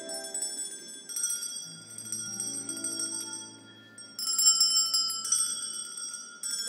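Music of high, ringing bell-like notes over a soft low note, with new chords struck about a second in and again a few times from about four seconds in.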